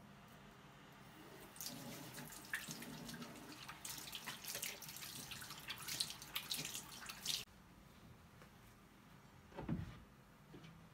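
Water running from a tap into a sink, splashing unevenly for about six seconds, then cut off abruptly; a single soft knock follows near the end.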